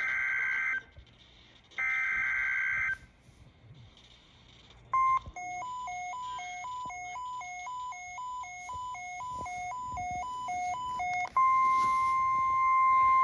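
Emergency Alert System alert tones: the last two screeching bursts of the digital SAME header data, then a warbling alert tone that flips between two pitches about twice a second. From about 11 seconds in comes the steady single-pitch NOAA Weather Radio 1050 Hz warning alarm tone.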